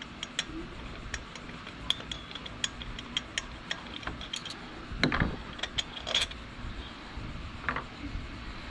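Ratchet wrench clicking in short, uneven strokes as a belt tensioner mounting bolt is backed out, with a few louder metal clanks about five and six seconds in.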